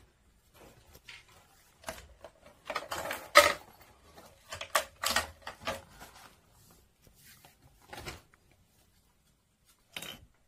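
Irregular plastic clicks, taps and rustles from handling a plastic toy stroller and a plush toy puppy, the sharpest clack about three and a half seconds in.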